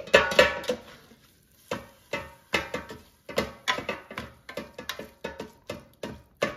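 Background music carried by pitched hand percussion, a steady beat of about three strikes a second, with a short lull about a second in.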